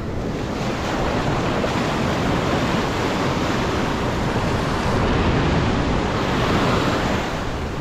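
Ocean surf breaking and washing up the sand at the waterline, a steady rush of water.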